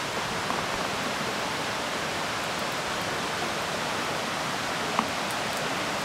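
Steady rushing of flowing water, with one short sharp click about five seconds in.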